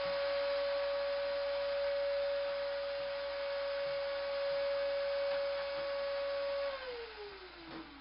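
Wet/dry shop vacuum motor running steadily with a high whine over a rushing hiss, drawing the ice water down through the stacked mesh extraction bowls. About seven seconds in it is switched off and the whine falls away as the motor spins down.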